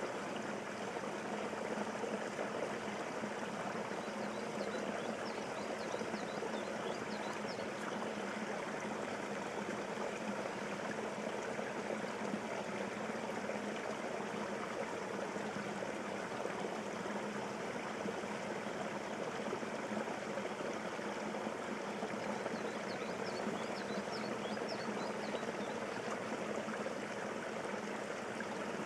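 Steady rushing noise like flowing water, with a few faint high chirps twice.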